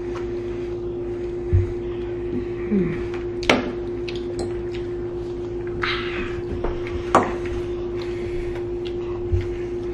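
Forks clinking and scraping on ceramic dinner plates during a meal, with two sharp clinks and a few soft knocks, over a steady hum.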